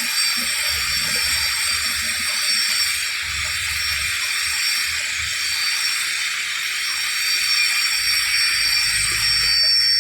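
Steady, loud high hiss with a few thin, high steady tones running through it, and a low rumble that grows stronger near the end.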